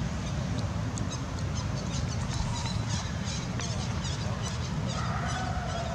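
Outdoor ambience: a steady low rumble under a run of quick, high chirps, with a short wavering call about five seconds in.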